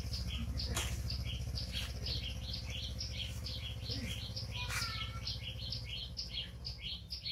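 Small motorbike engine running at a low putter as it rides away, fading toward the end. A bird chirps in quick repeated notes over it.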